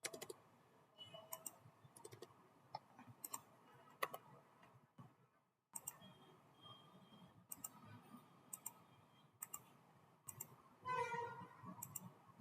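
Faint, scattered clicks of a computer mouse and keyboard, some coming in quick pairs like double-clicks. There is a short, slightly fuller sound about 11 seconds in.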